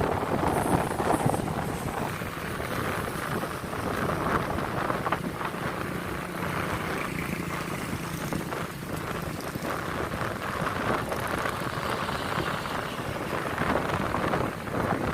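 Strong, gusty wind buffeting the microphone: a dense rushing noise that swells and falls with the gusts.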